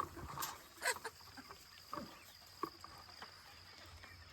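Faint, scattered short clucks and rustles from chickens and a dog moving during a chase. A thin, steady high tone comes in about a second in.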